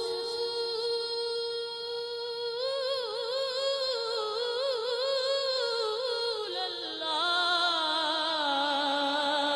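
A boy singing a naat with no words clearly sung: a long held high note, then a wavering, ornamented run, then another held note with vibrato from about seven seconds in.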